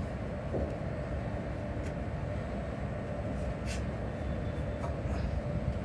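Steady low mechanical rumble of running machinery, with a couple of faint light clicks.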